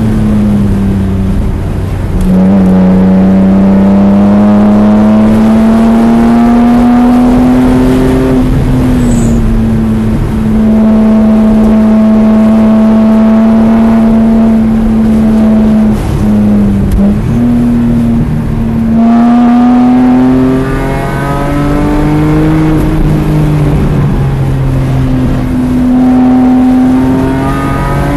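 BMW E46 M3's 3.2-litre S54 inline-six at speed, heard from inside the cabin. The revs climb under throttle, drop sharply a few times on lifts and shifts, hold steady for several seconds midway, then climb again.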